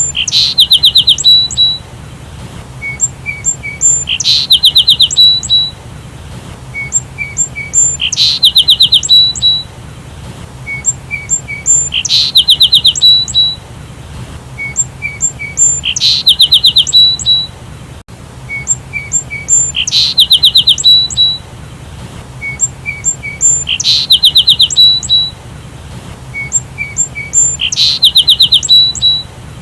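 Sparrow song played on a loop, the same phrase repeating exactly every four seconds. Each phrase opens with a few short chirps, then a quick rising note and a fast trill of about eight notes.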